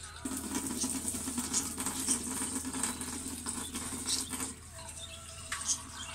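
Water poured from a drinking glass into a saucepan of browned chicken, onion and carrots, splashing steadily for about four seconds and then stopping. A few light clicks follow.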